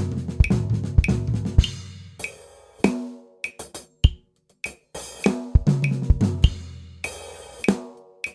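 Drum kit playing a groove with a flam-tap, ghost-note, diddle pattern worked in: quick snare strokes over kick drum. It falls into two phrases, each closing with a cymbal crash and low tom hits, about two seconds in and again near the end.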